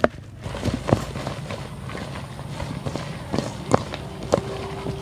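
Ground pork being beaten and kneaded in a stainless steel bowl into a sticky paste: scattered wet slaps and light taps of the spoon and hands against the meat and bowl. The beating works the meat into a chewy paste.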